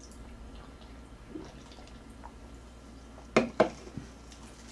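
A man drinking cola from an aluminium can, with faint swallowing and liquid sounds. About three and a half seconds in come two short, loud, sharp sounds in quick succession.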